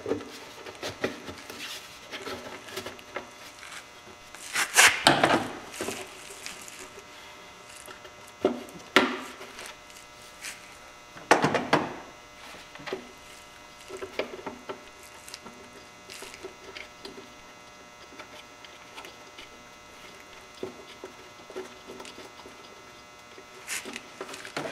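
Hard plastic covers being handled and pressed back into place in an ATV's engine bay: scattered knocks, scrapes and rubbing, loudest about five seconds in and again near the middle.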